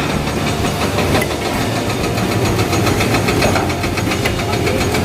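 Excavator-mounted hydraulic breaker hammering rock in rapid, even blows over the excavator's running engine.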